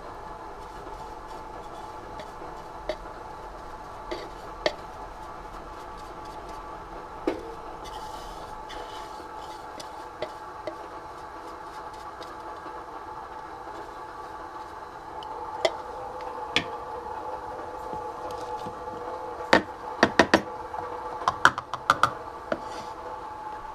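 Scattered light clicks and knocks over a steady hum, with several knocks in quick succession near the end.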